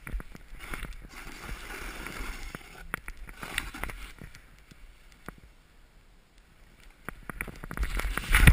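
Snowboard edge carving and scraping across wind-packed snow, picked up by a helmet-mounted camera: a swishing rush that swells and fades with each turn, mixed with small knocks and clicks. The loudest scrape comes near the end.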